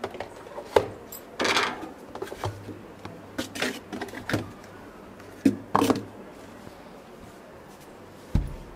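Plastic lidded tubs knocking and scraping as they are set down and pushed into place inside a chest freezer: a string of separate clatters. Near the end the freezer lid shuts with a low thud.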